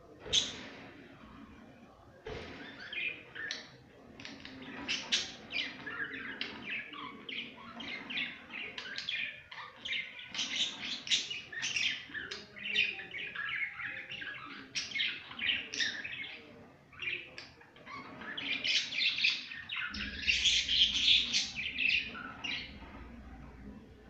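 Budgerigars warbling and chattering in a long, rapid run of short chirps, busiest near the end.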